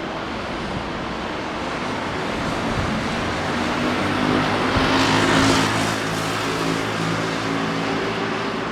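Daytime city street traffic: a steady wash of road noise, with a vehicle passing close and loudest about five seconds in, and an engine hum that holds through the second half.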